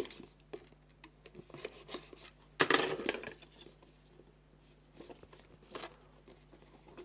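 A small cardboard box being opened and its paper packing handled: light clicks and scrapes of cardboard, with a louder rustle or tear of paper about two and a half seconds in and a couple of softer rustles later.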